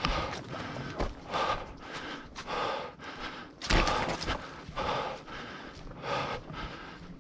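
A person breathing hard and fast close to the microphone, about two breaths a second, as if out of breath from exertion.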